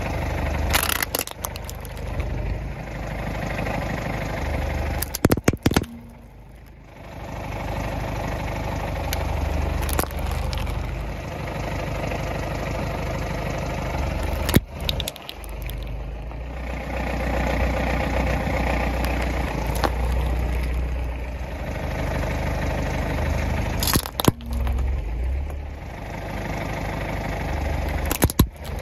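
A car's engine running steadily as the car creeps forward, broken several times by sharp cracks and snaps as its tyre crushes small plastic toys.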